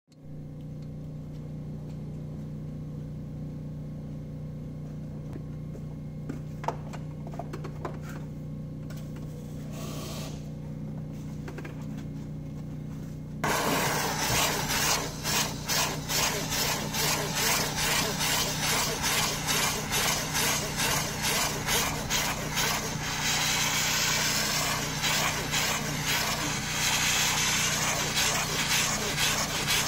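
A steady low hum at first. About halfway in, a handheld steam cleaner starts jetting steam with a loud, even hiss, while its triangular brush head scrubs back and forth over the cloth car-seat upholstery in a quick, regular rhythm.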